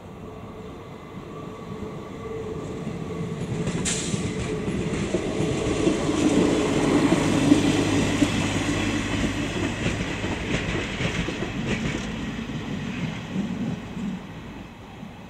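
A ČD Class 814 Regionova diesel railcar passes over a level crossing. Its engine drone and wheel noise grow louder, peak about halfway through, then fade as it moves away, with a few sharp clacks from the wheels on the rails.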